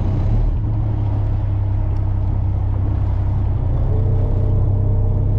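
Fishing boat's engine running with a steady low drone; a steady higher hum joins about four seconds in.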